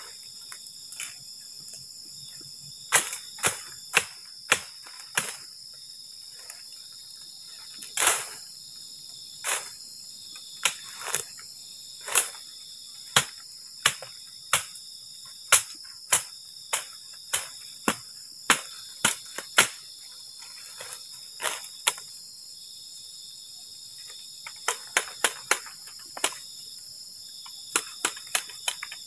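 Sharp cracks and snaps of dry bamboo and brush being broken by hand while clearing ground, roughly one a second with a quick run of them near the end. A steady high chorus of night insects runs underneath.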